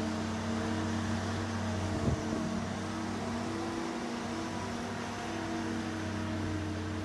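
Boat travel lift's engine running steadily with a low hum, and a single knock about two seconds in.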